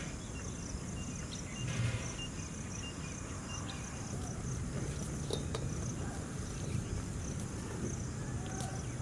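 Insects, likely crickets, chirping in a steady, evenly pulsing high chorus over a low outdoor rumble, with a few faint clicks.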